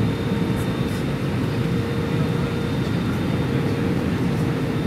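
Airliner engines running at climb power with air rushing past, heard inside the passenger cabin just after take-off: a steady low rumble with a steady hum above it.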